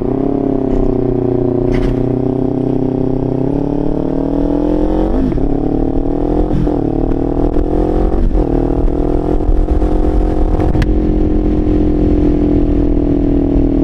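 2025 Kawasaki Ninja 500's parallel-twin engine through a Leo Vince LV Corsa exhaust, pulling under way: the engine note climbs slowly, breaks briefly three times about five, six and a half and eight seconds in as gears change, then holds steady at cruising speed. Wind rushes underneath.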